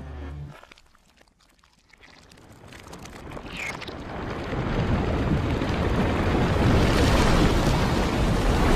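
Explosion rumble played in reverse: after a near-silent gap, a wide rushing noise with a deep low end swells steadily from about two seconds in and is loud by the end.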